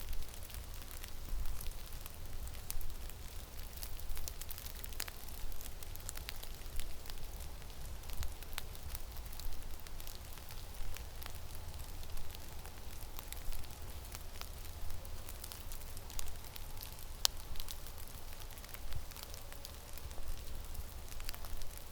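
Snowstorm wind in a forest: a steady hiss with a low, uneven rumble of wind buffeting the microphone and scattered small ticks and crackles.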